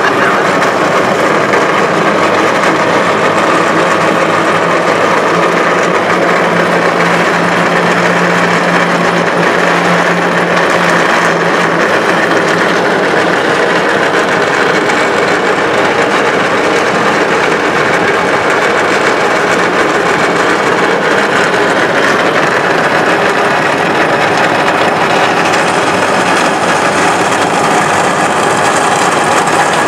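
Steady mechanical whirring of a cable-ride carriage's trolley wheels running along its steel cable, unbroken throughout, with a low hum joining for several seconds in the first half.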